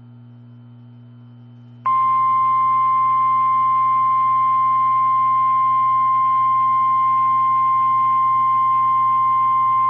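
A low electrical hum, then about two seconds in the NOAA Weather Radio 1050 Hz warning alarm tone starts: one steady, loud pure tone. It is the attention signal that comes just before a weather warning is read out.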